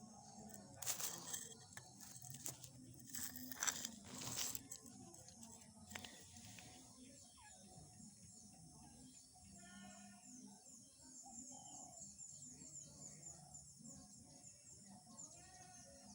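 A few loud rustling, crunching noises in the first five seconds, then a faint background with rapid high chirps running on.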